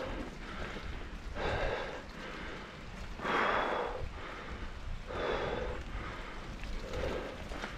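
A person breathing hard, a rough exhale about every two seconds, with the loudest breath a little past three seconds in: laboured breathing from the effort of the ride.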